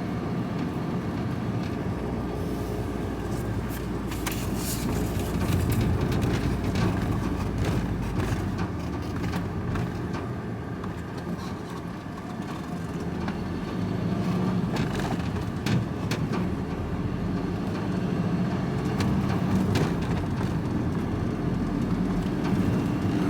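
Vehicle driving along, heard from inside the cab: a steady low engine and road rumble that swells a little now and then, with scattered small knocks and rattles.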